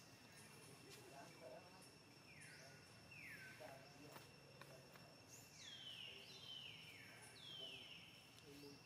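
Faint outdoor ambience: a steady high insect drone, joined from about two seconds in by a series of quick falling chirps, most of them in the second half.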